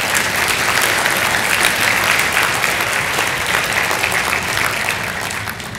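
Audience applauding, easing off a little near the end.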